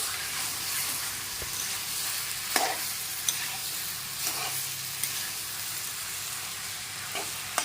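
Boiled ghatkol stalks sizzling steadily in spiced oil in an open pan, with a spatula scraping and knocking against the pan a few times.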